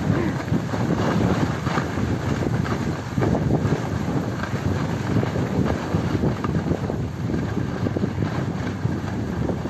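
Wind buffeting the microphone of a skier's camera during a downhill run, a steady low rumble with irregular gusts, mixed with the hiss and scrape of skis on packed snow.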